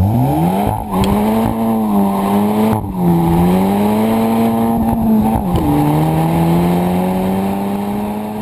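A car engine accelerating hard through the gears: its pitch climbs, drops sharply at each upshift about one, three and five and a half seconds in, then climbs more slowly as the sound fades near the end.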